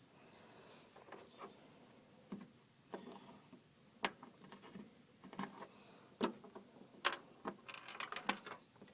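Light, irregular clicks and taps of small compression-fitting parts and plastic fuel tubing being handled and fitted together, coming closer together near the end. A faint steady high-pitched whine sits behind them.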